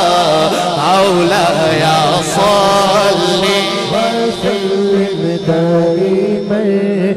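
Man's voice singing a naat in long, wavering melismatic phrases through a microphone, over a steady low drone.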